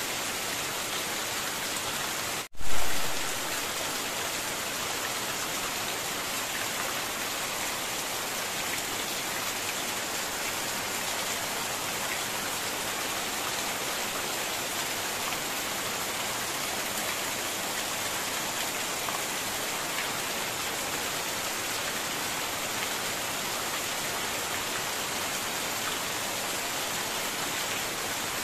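Heavy rain falling steadily on a corrugated roof and surrounding foliage, with runoff splashing off the roof edge onto the ground. About two and a half seconds in, the sound cuts out for an instant and then comes back with a loud, low thump that fades within half a second.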